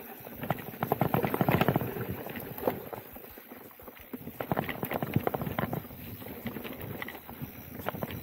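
Specialized Turbo Levo Gen 3 electric mountain bike rattling over a rough dirt singletrack: irregular knocks and clatter from the bike as the tyres hit bumps, busiest about a second in.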